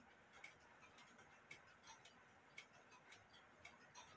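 Faint, steady ticking of a mechanical clock, about two ticks a second, over near silence.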